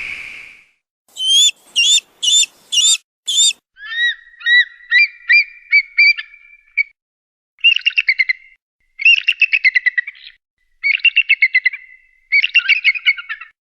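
Bird-of-prey calls: the tail of a scream fades away at the start, then five short sharp high calls, a run of whistled notes that quickens, and three bouts of rapid, high chittering notes with short pauses between them.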